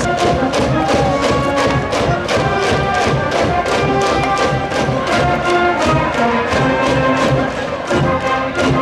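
Music with brass and a quick, steady drumbeat.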